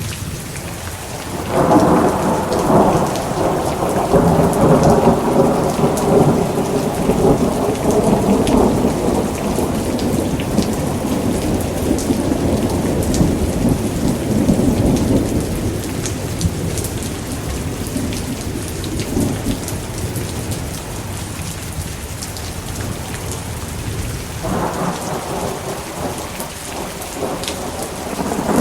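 Thunderstorm with steady rain. A long rolling peal of thunder breaks out about a second and a half in and slowly dies away, and another peal begins near the end.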